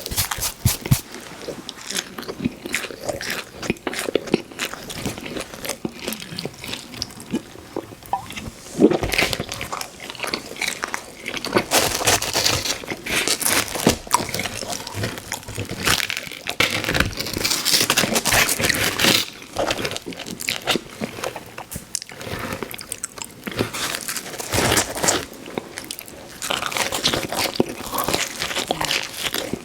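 Close-up eating sounds of pizza: crusty bites and wet chewing, an irregular run of crunches, clicks and smacks that comes in clusters.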